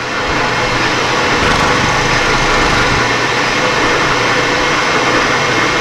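Milling machine running steadily, its spindle motor giving an even hum and whirr.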